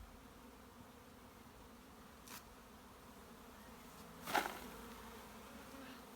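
A honeybee swarm buzzing steadily, many bees humming together. A faint click about two seconds in and a brief louder noise about four seconds in.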